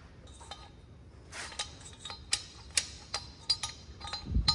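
Light metallic clicks and clinks of steel parts being worked by hand at a UTV's front wheel hub, as a stuck hub and inner bearing are eased off, a series of sharp ticks with short ringing. A louder low rumble comes in near the end.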